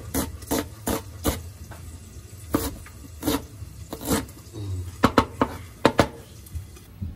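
Large kitchen knife chopping an onion on a plastic cutting board: irregular sharp knocks of the blade striking the board, a few a second, with a quick run of louder chops about five to six seconds in, over a low steady hum.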